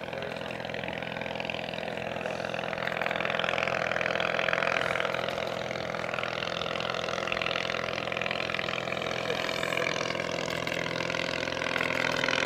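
The 1923 English Electric Wren's 398cc ABC flat-twin motorcycle engine, only 3 horsepower, running steadily in flight. It grows louder over the first few seconds, eases slightly midway and rises again near the end as the aircraft comes closer.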